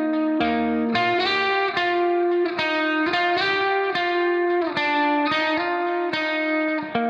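Background music: a plucked guitar melody with notes changing about every half second, at a steady level.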